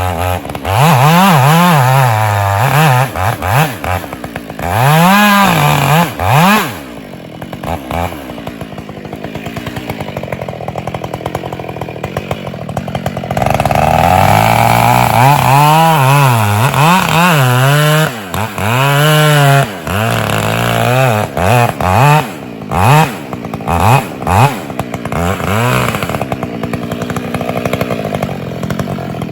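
Husqvarna 572 XP two-stroke chainsaw running and revving up and down over and over. It drops to a lower idle for several seconds in the middle, then revs hard again.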